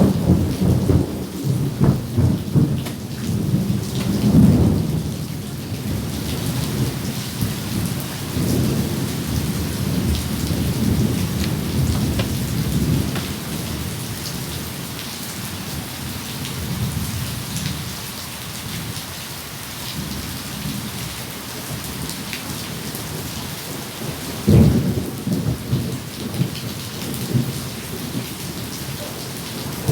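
Steady heavy rain with rolling thunder: a loud rumble right at the start and another around four seconds in, and a fresh sharp peal about three-quarters of the way through.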